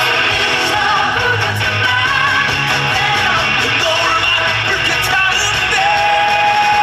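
Loud rock-style music with a singing voice, playing as the soundtrack to a fireworks display.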